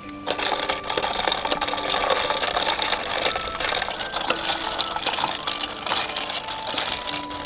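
Soda water fizzing and crackling as it is poured over ice in glass mason jars, then a metal spoon stirring and clinking the ice against the glass. Faint background music underneath.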